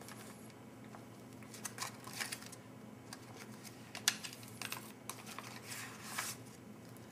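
Scattered light clicks and taps, with a brief rustle near the end, from hands handling an emptied foil retort pouch over a plastic mess tray. A faint steady low hum runs underneath.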